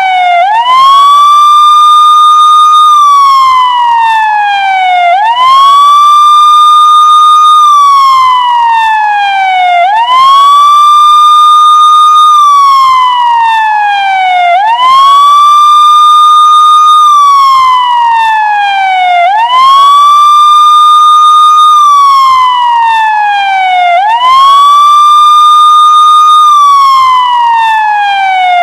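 Police siren wailing in a repeating cycle: the pitch climbs quickly, holds high for about two seconds, then slides slowly down before climbing again, about once every four and a half seconds.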